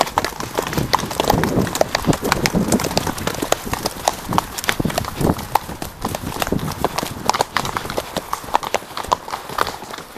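Hoofbeats of several horses going fast on a grass track, heard from the saddle of one of them: a rapid, irregular drumming of hooves that runs on without a break.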